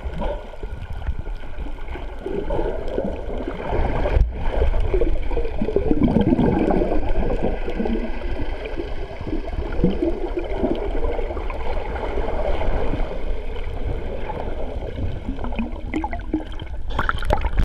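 Muffled underwater sound heard through a waterproof camera housing: water gurgling and bubbling over a constant low rumble.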